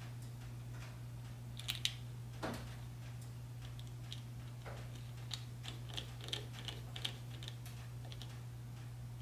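Small clicks and light taps of hands tucking wires into a plastic DB25 breakout board and a precision screwdriver turning one of its small screws. There are a couple of sharper clicks around two seconds in, then a run of light ticks in the second half, over a steady low hum.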